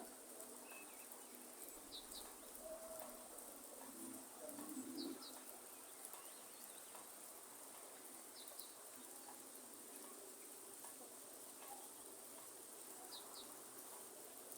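Faint rainforest ambience: a steady hiss of light rain, a bird giving low cooing calls a couple of times in the first five seconds, and a short high double chirp repeating about every three to four seconds.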